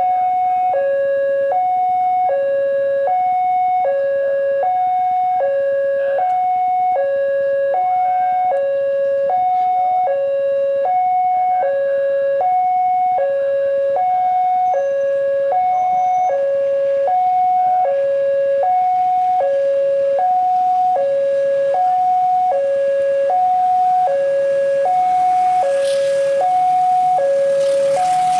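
Railway level-crossing warning alarm sounding a steady two-tone signal, a lower and a higher tone alternating about every half second, warning of an approaching train. Near the end the noise of the approaching diesel locomotive rises faintly beneath it.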